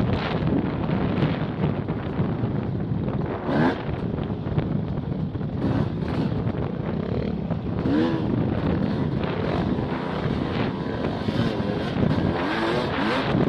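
Off-road motorcycle engine running under load on a trail ride, its revs rising and falling several times, under heavy wind buffeting on the microphone.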